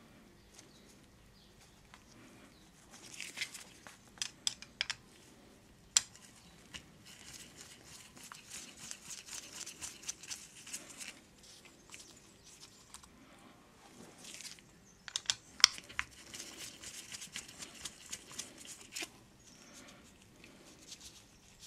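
Small screwdriver undoing the diaphragm-cover screws of a chainsaw carburettor: two spells of scratchy metal-on-metal turning, broken by sharp clicks and taps as the screws come loose and are handled, with light rustling of the paper towel beneath.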